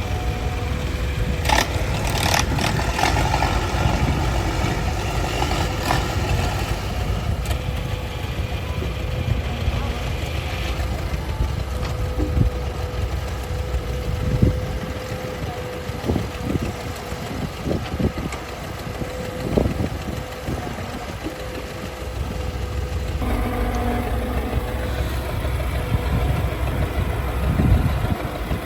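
Heavy construction machinery's diesel engine running steadily with a low rumble, with scattered knocks and clatter.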